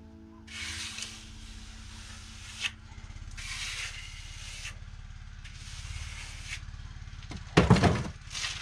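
Lime render being pressed and smoothed onto a wall by gloved hand and trowel: a series of scraping strokes, each a second or two long. Under them a small engine runs steadily at a low pitch, a motor cultivator working nearby. There is one louder, fuller sound near the end.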